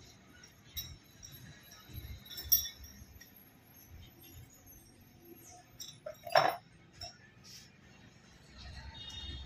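Light metal clinks of a steel power steering cylinder rod and its new gland nut being handled and fitted together. A sharper clink comes about two and a half seconds in, and the loudest, briefly ringing one about six and a half seconds in.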